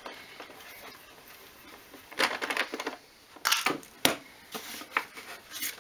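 Scattered clicks and rattles of a socket ratchet and small Torx screws being handled on a workbench, starting about two seconds in, with a sharp knock about four seconds in.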